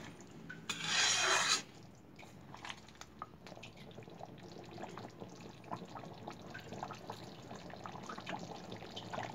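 Thick chicken curry gravy simmering in a kadhai, bubbles popping and plopping in a steady scatter of small soft pops. About a second in, a loud hissing rush lasts about a second before the bubbling takes over.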